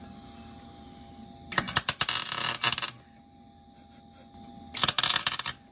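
MIG welder laying two short tack welds, the arc crackling and spitting for about a second and a half, then again for under a second near the end.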